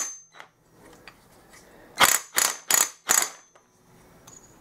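Power driver spinning the clutch-centre nut down onto the shaft splines in four short bursts about two seconds in, tightening it up.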